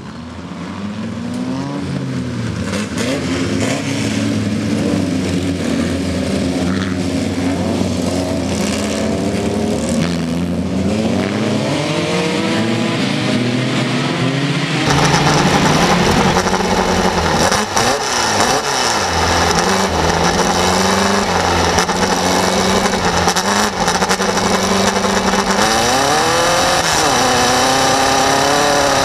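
Race buggy engine running hard, heard from inside the cockpit. It fades in, and about halfway through it cuts abruptly to the in-car recording, where the revs rise and fall several times.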